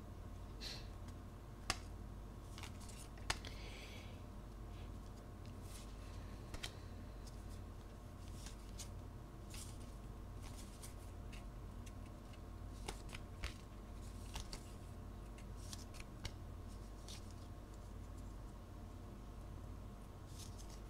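Magic: The Gathering cards being flipped through by hand, each card slid off the pile onto the next: a scatter of soft rustles and small snaps, two sharper clicks in the first few seconds. A faint steady low hum lies underneath.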